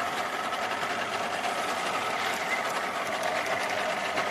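Spinning reel whirring steadily with fast fine clicking under the load of a big hooked jack crevalle.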